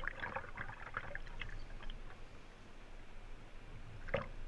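Wing paddle blades splashing into and out of flat water with kayak strokes: a cluster of small splashes and drips in the first second and a half, then a sharper single splash about four seconds in.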